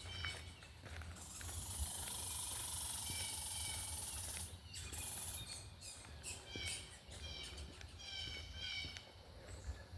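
Footsteps along a dirt trail with small birds chirping in short repeated phrases. A high hiss rises about a second in and stops about four and a half seconds in.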